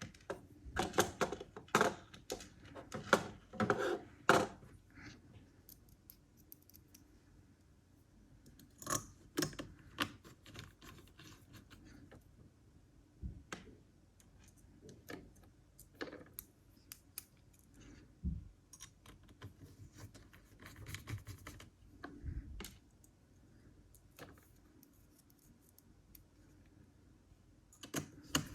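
Small metallic clicks and scrapes of a screwdriver seating and turning the heatsink screws of a laptop, a quick run of clicks in the first few seconds, then scattered single taps.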